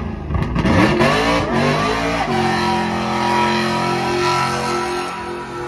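Car engine revving hard in quick rises and falls, then held at a steady high pitch from about two seconds in, as during a donut or burnout.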